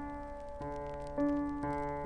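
Soft background piano music: single notes and chords struck about every half second, each ringing and fading.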